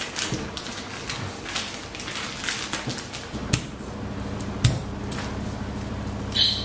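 Plastic packaging crinkling and rustling as a leg of lamb is unwrapped, then sharp clicks and knocks of a small knife on a bamboo chopping board as garlic cloves are peeled, over a low steady hum.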